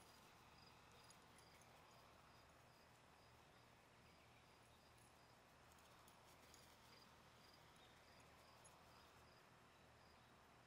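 Near silence: a faint steady hiss with faint crickets chirping at an even pace.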